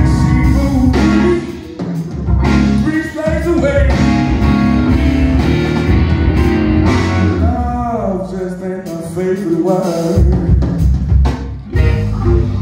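Live electric blues: a single-cutaway electric guitar plays bending lead lines over a drum kit and band. The low end drops away for about two seconds past the middle, leaving the bending guitar lines nearly alone, then the band comes back in.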